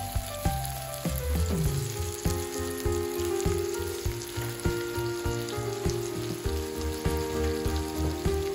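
Tomato slices sizzling and crackling in hot oil in a frying pan, with background music playing.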